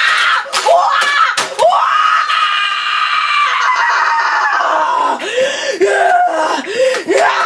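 A boy screaming in a tantrum: one long high scream held for about three seconds, then a run of short shrieks and yelps. A few sharp knocks come near the start and near the end.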